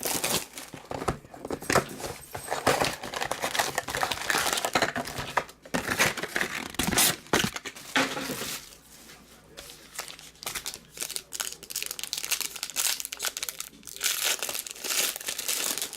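Trading-card pack wrappers being torn open and crinkled, with irregular crackling and rustling that eases off for a couple of seconds past the middle.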